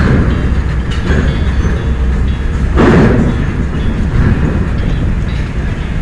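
Loaded diesel cargo truck driving across a steel-grated ferry dock and ramp: a steady low engine rumble with clattering and clanking as the wheels roll over the metal plates, loudest about three seconds in.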